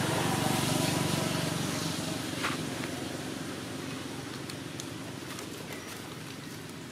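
A motor vehicle engine running steadily and fading away, with a single sharp click about two and a half seconds in.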